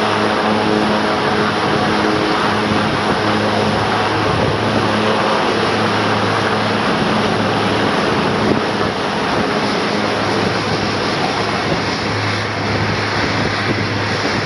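Twin-engine turboprop's engines and propellers running at high power, a loud, steady drone with a low propeller hum, as the plane begins its takeoff roll and pulls away.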